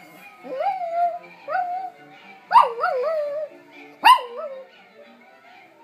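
A Pomeranian howling along to television music: about four short howls that rise and fall in pitch, two of them starting sharply, stopping about three-quarters of the way through while the music plays on underneath.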